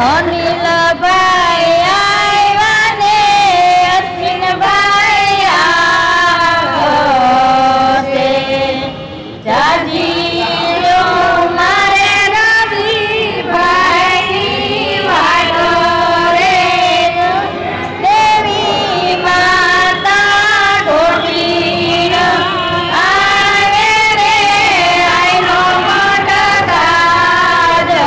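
Chorus of female voices singing a traditional Gujarati wedding song (lagna geet) in long, wavering held notes, with short breaks between phrases.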